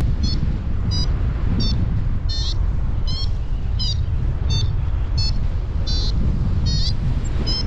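Paragliding variometer beeping steadily, short high beeps about one and a half times a second, the pattern that signals the glider is climbing in lift. Wind buffets the microphone underneath as a loud low rumble.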